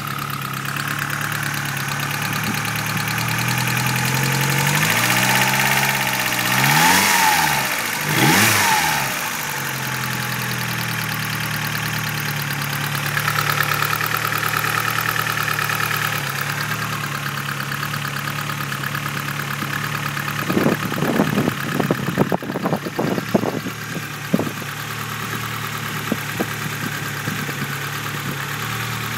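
Suzuki Swift GTi's G13B twin-cam four-cylinder running with a loud tick, which the owner suspects is sticky lifters. It is briefly revved twice, about seven and eight and a half seconds in. A run of irregular knocks comes about two-thirds of the way through.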